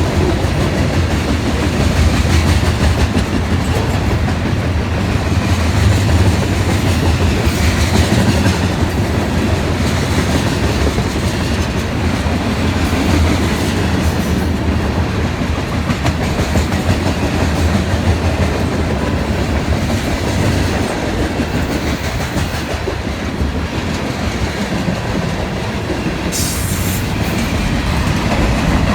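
Cars of a mixed freight train rolling past, wheels clicking over the rail joints over a steady rumble, with a short high hiss near the end.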